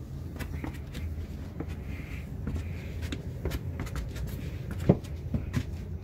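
Footsteps and shuffling on a wooden attic floor, with scattered small clicks and knocks and one louder knock about five seconds in.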